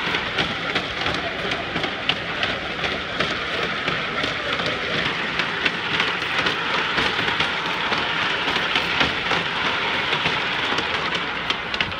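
Steady clattering, grinding noise with frequent small knocks from a human-powered wooden treadwheel driving a sno-cone ice shaver.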